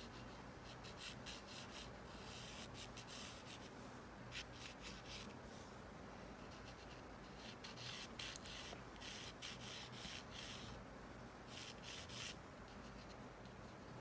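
Pencil lead scratching faintly across paper in short sketching strokes, in several runs with brief pauses between them.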